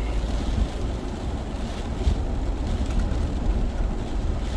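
Steady low rumble of car cabin noise, with wind outside the car.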